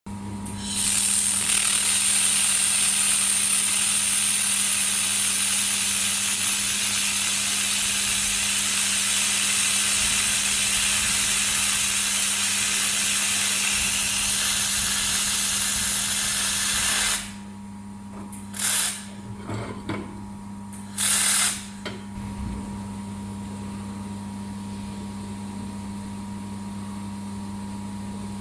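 Handheld fiber laser welder firing: a loud, steady hiss for about sixteen seconds that cuts off suddenly, then two short bursts a couple of seconds apart. A constant low hum runs underneath.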